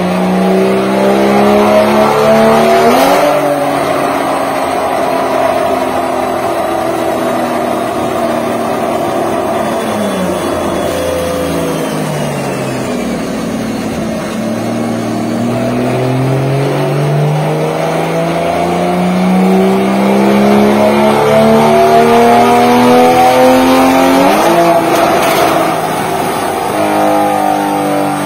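Porsche Cayman 981's flat-six engine with an Armytrix valvetronic exhaust, running full-throttle pulls on a chassis dyno. The pitch climbs to a peak about three seconds in, then falls steadily as the throttle closes and the revs drop. A second long pull rises slowly in pitch to another peak near the end, then falls again.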